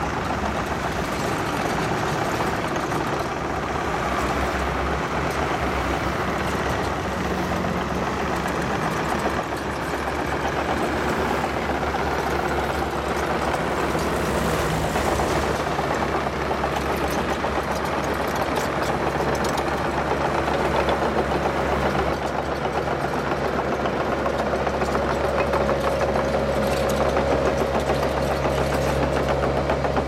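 Diesel engines of tracked mini excavators running steadily with a low hum. A higher steady tone joins in near the end.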